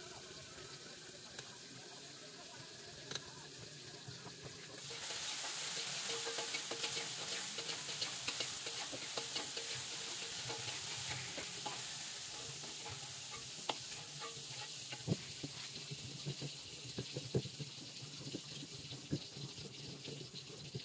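Food frying in a wok. The sizzle jumps up suddenly about five seconds in and fades slowly, with a spatula stirring. In the second half, a stone pestle knocks and grinds in a flat stone mortar (cobek and ulekan) in a series of sharp, uneven knocks.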